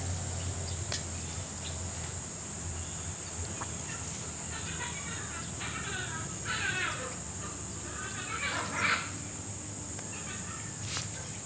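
Birds calling in short chirping bursts, clustered in the middle, over a steady high-pitched insect drone.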